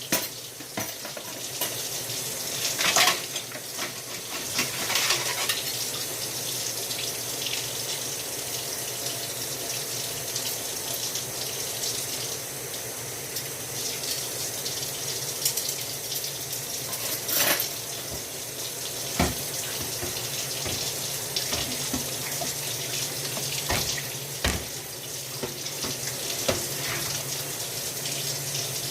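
Kitchen tap running steadily into a sink while dishes are washed, with a few sharp clinks and knocks of dishes against each other or the sink.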